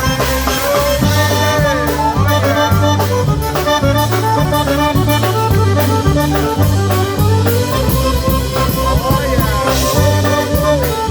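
Live polka band playing an instrumental passage: accordion and horns carry the melody over a steady, pulsing bass beat.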